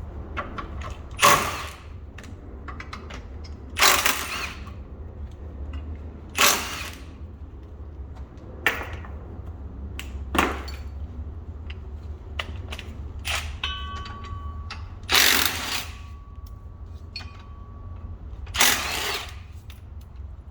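Hand ratchet wrench working the bolts of the front differential bracket on a 1991 Toyota Previa, in about seven short ratcheting bursts a few seconds apart, with small metallic clicks between them. A steady low hum runs underneath.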